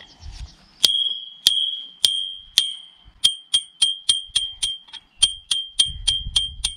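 Steel knife blade striking a rusty iron rod again and again, each hit a sharp metallic clang with a short ringing tone. The hits come about every half second at first, then quicken to about three a second from about three seconds in.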